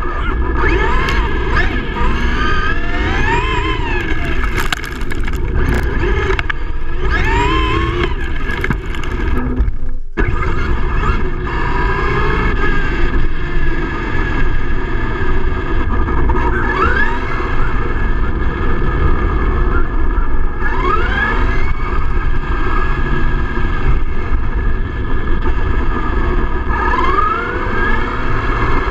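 Traxxas E-Revo RC truck's electric motor and drivetrain whining, rising in pitch again and again as it accelerates, over a steady rumble of the tyres on rough asphalt, heard close up from on board the truck. The sound drops out briefly about ten seconds in.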